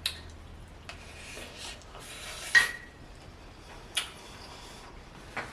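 Eating sounds close to the microphone: a utensil scraping and rubbing against a plate, with a sharp clink about two and a half seconds in and a smaller click near four seconds.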